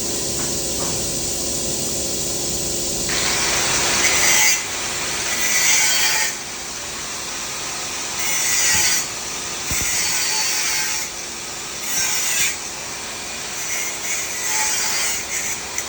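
Repeated rasping scrapes, one every one and a half to two seconds, following a steady hiss in the first three seconds.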